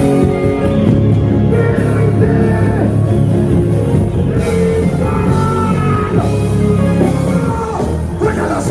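Loud live band music from a concert stage.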